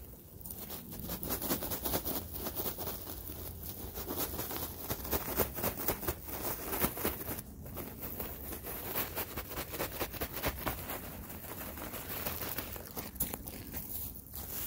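Untreated redwood sawdust mulch being poured and shaken out of a bag onto loose soil: a dense pattering rustle.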